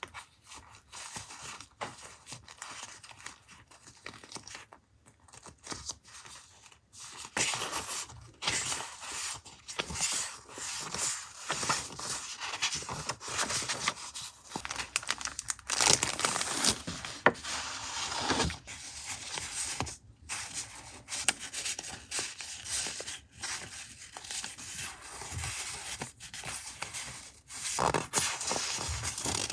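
Paper and packaging handled by hand: rustling, crinkling and tearing in irregular short strokes. It is sparse for the first several seconds and busier after that.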